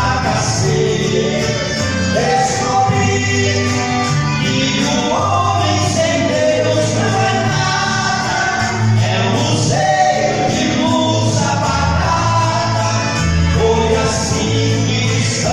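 Gospel song: voices singing a melody over instrumental backing with sustained bass notes.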